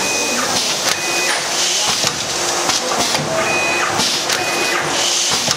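Four-lane high-speed automatic packing machine running: a steady, loud mechanical clatter with rapid clicks, and short high-pitched squeaks that come back every second or so.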